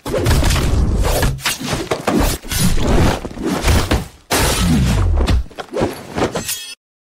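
Film fight sound effects: a rapid run of heavy blows, crashes and breaking sounds as two fighters clash.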